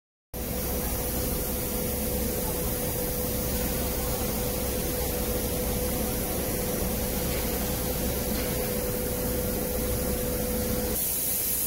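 Artech ART-3050 5-axis CNC router running: a steady hiss with a steady mid-pitched hum, the hum cutting off shortly before the end.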